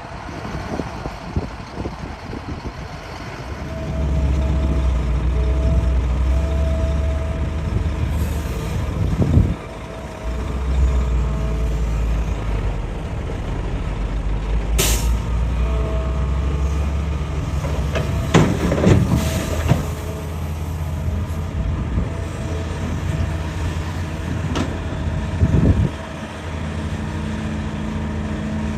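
Hitachi excavator's diesel engine working under load, with a steady hydraulic whine, swelling about four seconds in and briefly easing near the middle. Its bucket knocks and scrapes against rock: a sharp clang about halfway through, a cluster of knocks soon after, and one more near the end.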